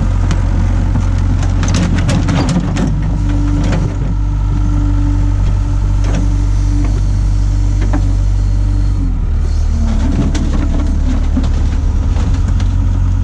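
Hitachi excavator's diesel engine running steadily at working speed, with a steady higher tone over the engine note and several sharp knocks and clatters in the first few seconds; the engine note changes about nine seconds in.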